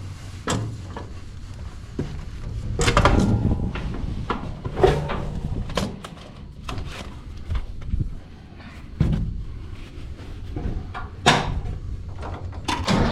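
A series of irregular clunks and knocks, hard objects striking, a second or two apart and varying in strength, over a faint low rumble.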